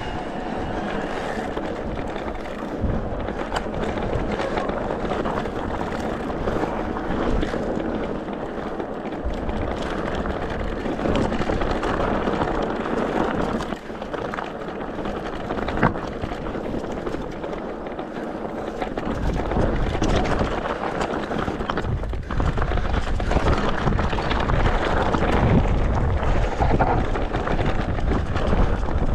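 Steady rush of wind buffeting a camera microphone, with a low rumble that gets heavier about two-thirds of the way through.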